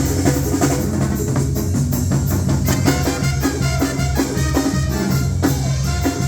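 Loud music with a drum kit and percussion keeping a steady beat over a heavy bass.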